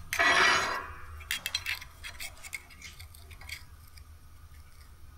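A short scrape of metal on metal, then a run of small clinks and taps as a steel protractor is set against a bent steel test piece on a steel welding table to check the bend angle. The clinks stop about three and a half seconds in.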